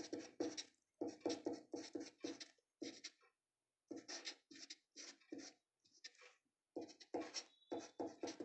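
Marker pen writing on paper in quick short strokes, pausing briefly twice.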